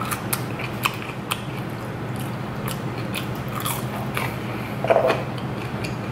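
Close-miked chewing of a sauce-dipped KFC fry: irregular crunches and wet mouth clicks, with one louder burst about five seconds in.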